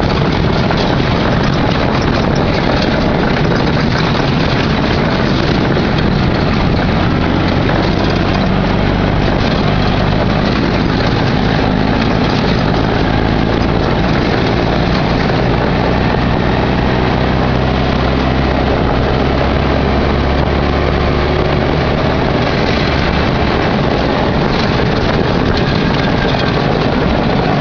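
Off-road buggy's engine running steadily as the buggy drives over a rough dirt track, mixed with a dense noise of wind and rattling that keeps up throughout.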